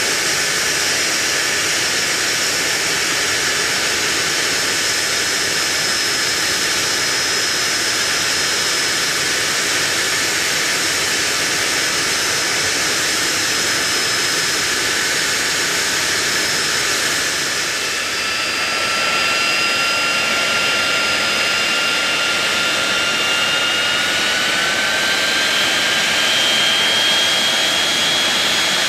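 Rolls-Royce Spey turbofan engines of a Hawker Siddeley Nimrod running on the ground: a loud, steady jet rush with a high whine. About two-thirds of the way in a new whine comes in and slowly rises in pitch, as an engine spools up.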